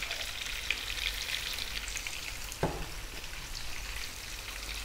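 Sliced red onion and garlic frying in hot olive oil and lamb fat in a pot over medium heat: a steady, finely crackling sizzle. One brief soft knock about two and a half seconds in.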